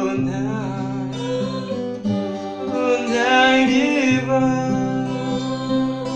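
Music: acoustic guitar chords over held bass notes, with a wavering melody line that swells about three seconds in.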